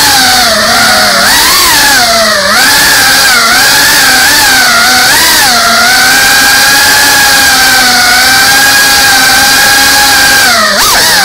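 FPV drone's electric motors and propellers whining loudly, heard from the drone itself; the pitch rises and falls with the throttle, holds steady for a few seconds in the middle, then dips near the end.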